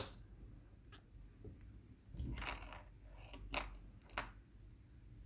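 Faint handling sounds of small metal parts: a few light clicks and a brief scrape as tweezers and lock pins are moved about on a work surface.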